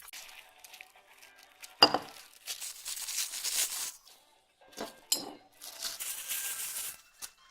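Metal parts of a stainless-steel cocktail shaker clinking together while plastic wrapping is rustled and torn. One sharp ringing clink about two seconds in is the loudest; a few smaller clinks follow near the middle.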